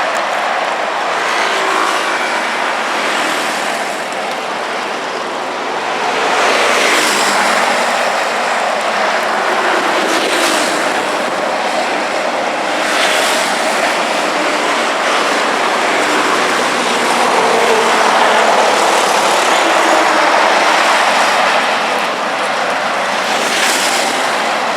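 Heavy street traffic: a continuous din of tyres and engines, with vehicles passing close by about four times, each a brief louder whoosh.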